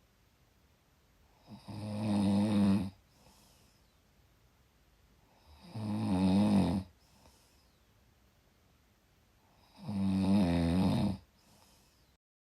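A person snoring: three loud snores about four seconds apart, each followed by a faint breath. The sound cuts off suddenly just before the end.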